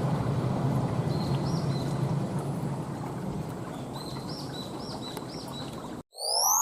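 381-series electric express train running away along the track, its rumble of wheels on rail fading steadily, with a few faint high chirps over it. The sound cuts off about six seconds in and a synthesized rising chime starts.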